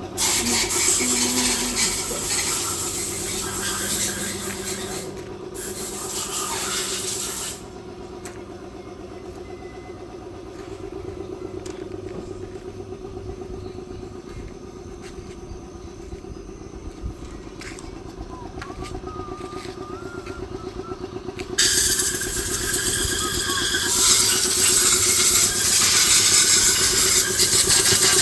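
Wheel loader's diesel engine running steadily, with a loud rushing hiss over it for about the first seven seconds and again from about three-quarters of the way through.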